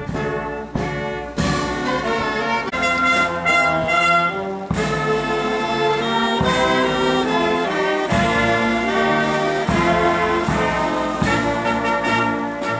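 Military wind band playing live: saxophones, clarinets and brass sounding sustained chords that change every second or so, led by a conductor.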